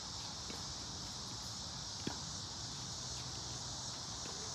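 Steady, high-pitched chorus of insects from the surrounding trees, with a few sharp knocks of tennis balls on the courts. The clearest knock comes about two seconds in.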